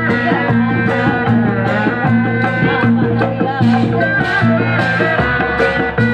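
Loud amplified Sundanese bangreng music: a heavy repeating bass line under steady drumming, with a wavering melody line above.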